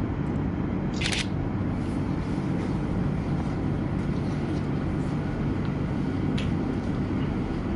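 Camera shutter clicking: one sharp, short click about a second in and a fainter one after about six seconds, over a steady low rumble of room noise.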